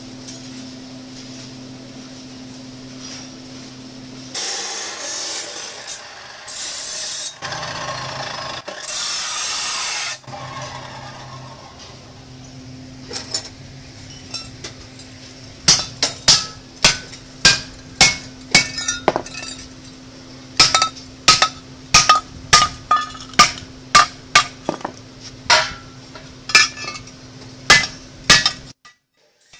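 A hammer striking steel pipe, sharp ringing blows at roughly two a second, over a steady electrical hum. Earlier, several seconds of loud rushing noise come and go.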